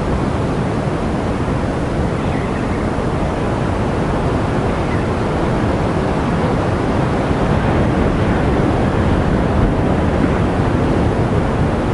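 Steady rush of ocean surf, with wind blowing on the microphone.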